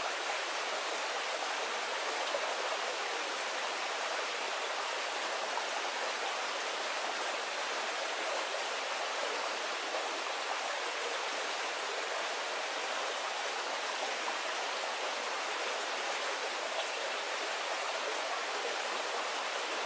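Small stream water flowing over rocks: a steady, even rush of water.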